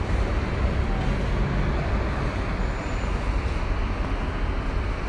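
Steady road traffic noise on a busy city street, with cars and a city bus driving past.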